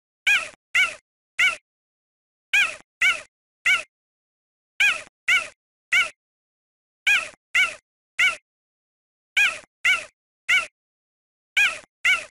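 Cheetah calling: short high-pitched calls in groups of three, the groups repeating evenly about every two seconds.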